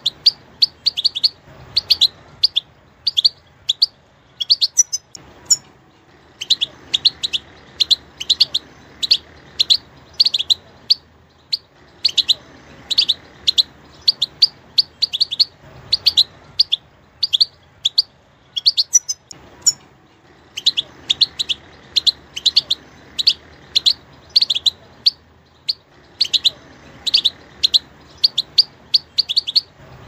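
European goldfinch chirping: short, sharp, high notes repeated several times a second in runs of a few seconds, with brief pauses between the runs.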